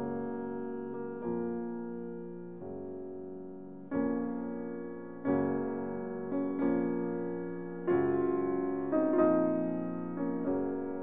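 Background piano music: a gentle melody of struck notes and chords, each fading after it is played, with a new note every second or so.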